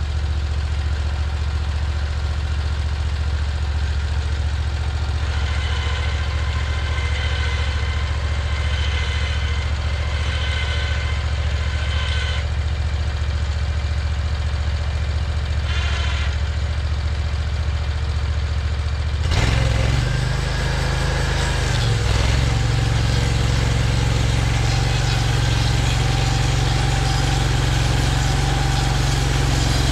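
Portable band sawmill's engine idling steadily, then throttled up about two-thirds of the way through, holding at a higher running speed.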